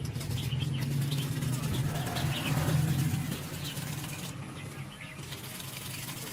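Small birds chirping over a steady low engine-like hum.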